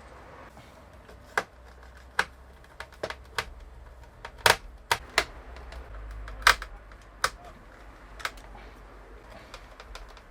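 Irregular sharp clicks and taps of small plastic and metal parts being handled and fitted while a DJ controller is reassembled, two of them louder about halfway through.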